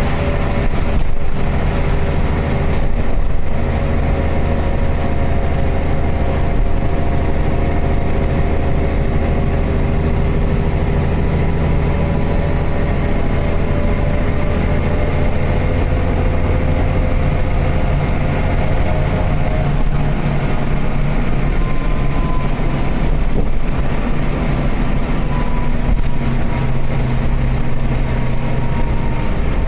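City bus driving along, heard from inside the cabin: a steady low engine and road rumble with a faint whine over it. The low rumble drops away about twenty seconds in.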